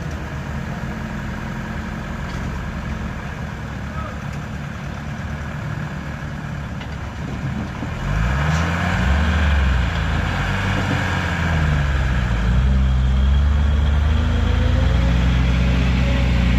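Heavy diesel truck engines labouring on a steep climb. They run steadily at first, then from about eight seconds in they are louder, with the engine pitch swinging up and down as they rev hard under load before settling into a loud steady pull. This is the sound of heavily loaded trucks straining on the grade, black smoke pouring out.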